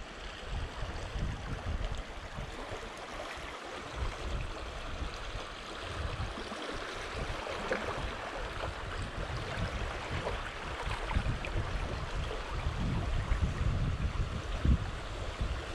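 Rushing, rippling water of a river swift running past a canoe, with uneven low rumbling underneath, growing a little louder toward the end.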